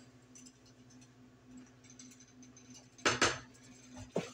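Short clatter of kitchen utensils knocking against cookware about three seconds in, followed by two sharper knocks near the end, over a faint steady hum.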